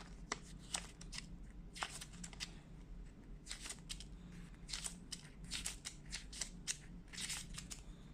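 Faint, irregular clicks and rustles of packaging and accessories being handled by hand, several to a second, over a faint steady low hum.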